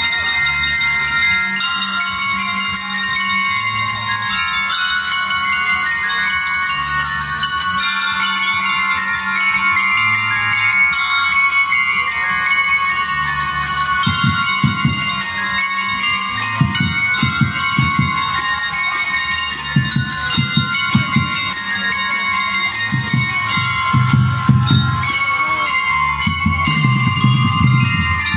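Marching drum and lyre band playing: bell lyres ring out a melody over a stepping low bass line, with drum hits coming in strongly from about halfway through.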